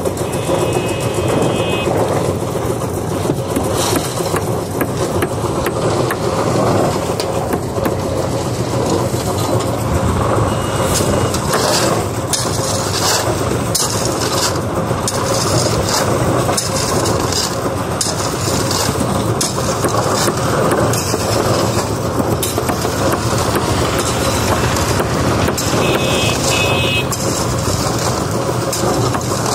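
A steady engine drone runs throughout, with irregular sharp knocks of a claw hammer striking the wooden foundation shuttering planks, coming thickest in the middle.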